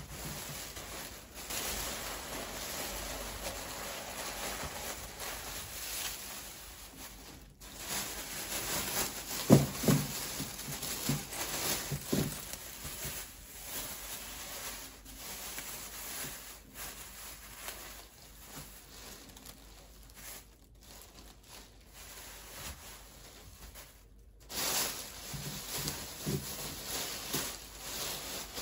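Thin plastic grocery bags rustling and crinkling as produce is pulled out of them, with a few sharp knocks around ten seconds in as items are set down on a glass tabletop.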